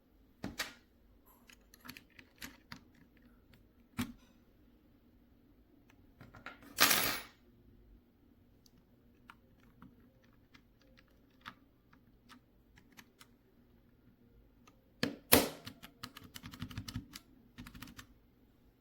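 Computer keyboard keys being pressed: scattered single clicks and short runs of keystrokes, with a louder clack about seven seconds in and a quick run of typing near the end.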